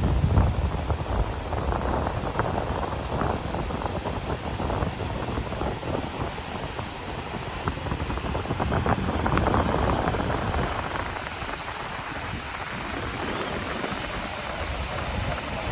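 Atlantic surf breaking and washing up the beach, with wind buffeting the microphone. The noise swells and ebbs, strongest at the start and again a little past halfway.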